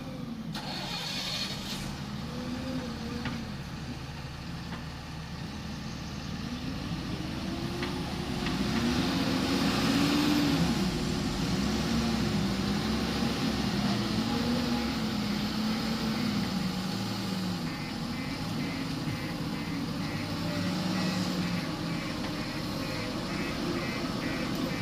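Diesel engine of a JCB 3DX backhoe loader working, its revs rising and falling again and again as the hydraulics are worked while loading, louder from about eight seconds in. Near the end a rapid repeating beep joins it, like a reversing alarm.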